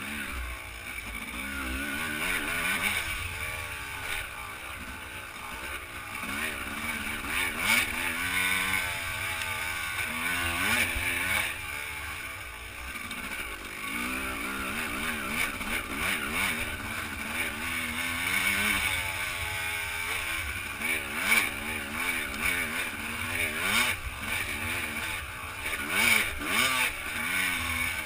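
Enduro dirt bike engine being ridden hard on a rough trail, its revs constantly rising and falling as the throttle is worked through gear changes. Scattered knocks and clatters come from the bike hitting bumps.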